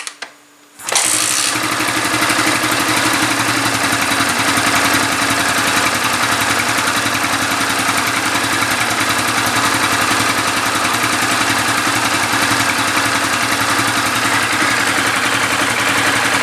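Yamaha New Vixion's 150 cc single-cylinder four-stroke engine starting about a second in and then idling steadily. It runs normally after its cylinder block and piston were replaced, without the piston knock that running short of oil had caused.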